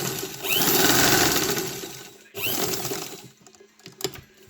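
Singer 15K sewing machine driven by a new electric motor, stitching fast at what is called industrial speed: a run of about two seconds, a brief stop, then a shorter second run, each starting with a quick rise as the motor spins up. A single click near the end.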